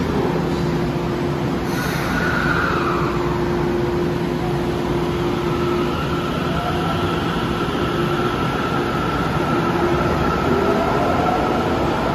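Electric subway train pulling out of the station. Its traction motors whine in several steady tones, with short rising glides as it gathers speed, over a continuous rumble of wheels on rail.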